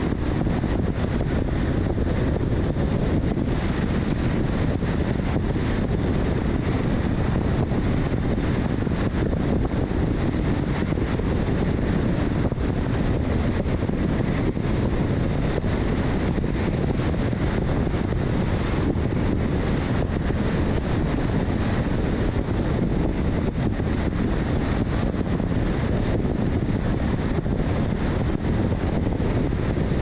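Steady road and wind noise of a car driving at highway speed, with wind rumbling on the microphone.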